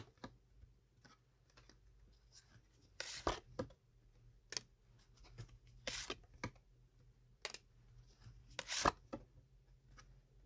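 Tarot cards being handled: shuffled, drawn and laid down, giving scattered soft clicks and rustles, the loudest about three, six and nine seconds in.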